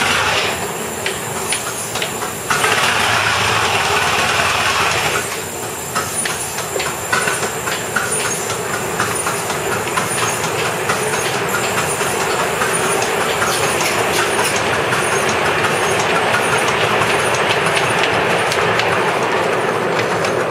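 A 7¼-inch gauge live-steam Black 5 locomotive running with a load of 14, with a steady rush of steam and rapid clicking of wheels on the rails. It grows louder for a couple of seconds near the start.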